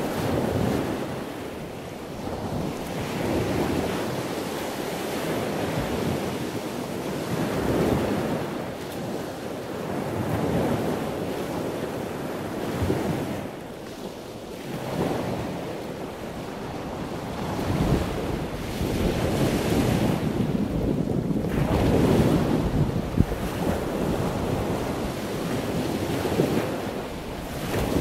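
Sea waves surging and washing in every few seconds, with wind blowing across the microphone.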